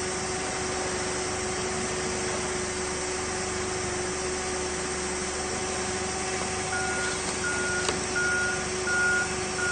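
Propane forklift engine running with a steady hum. About seven seconds in, its reversing alarm starts, a high beep about twice a second.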